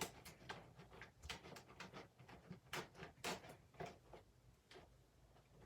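Blue glue slime being stirred slowly as activator is mixed in, giving faint, irregular sticky clicks, several a second.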